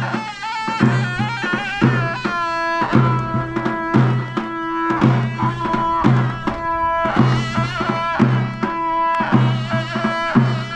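Iranian folk wedding music: a shrill, reedy wind instrument plays a melody of held notes over a steady, regular drum beat.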